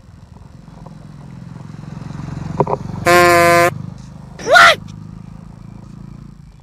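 Motorcycle engine running as it approaches and passes, with one loud horn blast of about half a second around three seconds in. About a second later comes a short, even louder yell that rises and falls in pitch.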